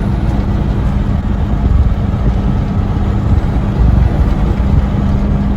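Semi truck's diesel engine and road noise heard inside the cab while driving: a steady low rumble with a constant hum.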